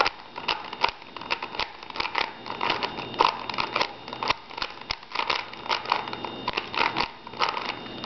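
3x3 Rubik's Cube twisted quickly by hand, its plastic layers clicking and clacking several times a second in an uneven rhythm.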